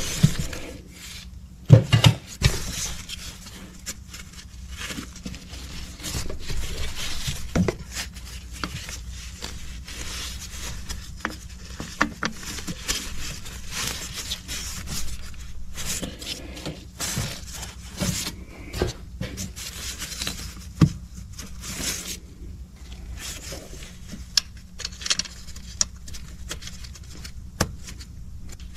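Wrench and metal fittings clinking and scraping as the AC compressor's refrigerant lines are fitted and their bolts tightened: irregular clicks and knocks with a few sharper clanks, the loudest about two seconds in.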